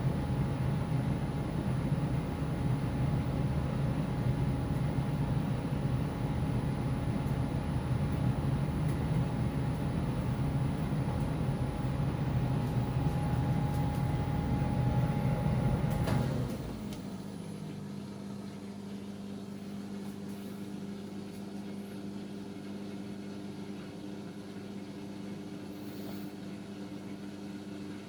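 Electrolux PerfectCare 800 condenser tumble dryer running with a steady hum, then its drum and fan stop about two-thirds of the way through, at the end of the drying cycle, leaving a much quieter steady hum.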